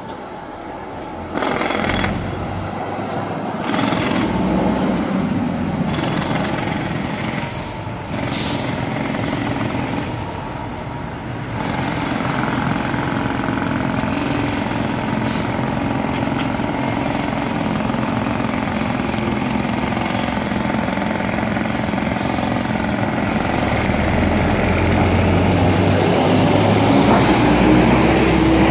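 Diesel city transit bus running, with a few sharp knocks in the first seconds and a brief high squeal about seven seconds in. The engine grows louder near the end.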